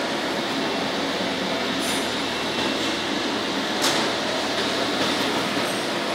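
Steady noise of industrial machinery running, with a couple of faint clicks about two and four seconds in.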